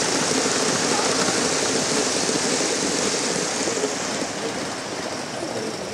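Gauge 1 live-steam locomotive, a rebuilt Merchant Navy, and its train moving away on the track: a steady rushing hiss of steam and wheels that fades from about four seconds in.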